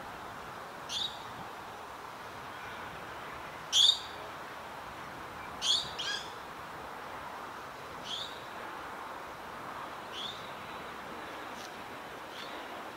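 A bird giving short, sharp chirps that sweep downward, about seven of them spaced a second or two apart, the loudest about four seconds in. Beneath them is a steady faint background hiss.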